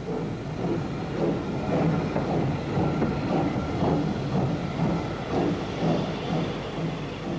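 Ex-LSWR T9 4-4-0 steam locomotive drawing a train of coaches out of a station, with a continuous uneven run of beats.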